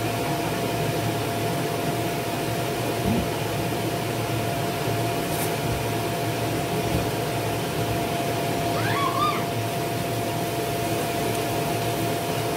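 Electric air blower of an inflatable bounce-house water slide running: a steady whooshing hum with one constant tone through it.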